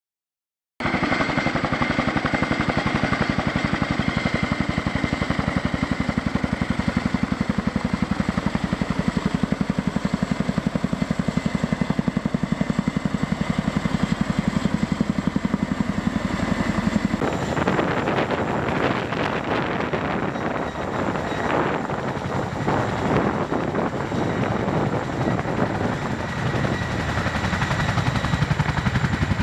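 CH-47 Chinook tandem-rotor helicopter flying, its rotors giving a rapid, even beat that starts about a second in. About seventeen seconds in the sound changes abruptly to a rougher, noisier rotor rush.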